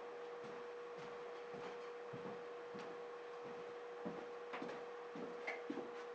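Faint steady hum at a single pitch, with scattered light knocks and clicks, a few more of them near the end.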